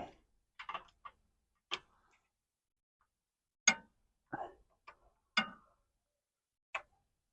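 Hand tools clicking and clinking against metal in short, uneven strokes, about eight in all, as a wrench or ratchet and socket work the power steering hose fitting on a 1995 Ford Explorer.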